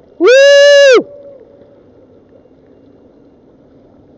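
A single loud, high-pitched held tone lasting just under a second, steady in pitch with a short slide up at the start and down at the end. Faint background noise follows.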